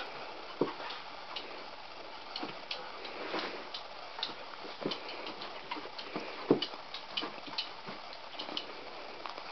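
A squeaking cat toy giving short, irregular high chirps and clicks as a dog bats and bites at it, with a few soft knocks from the dog's movements.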